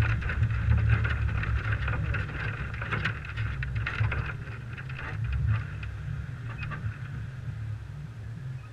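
Muffled low rumble of a 1998 Toyota 4Runner driving over a dirt track, picked up by a camera mounted on the outside of the truck, with wind noise and scattered small knocks and rattles. The sound drops off after about five seconds as the truck slows almost to a stop.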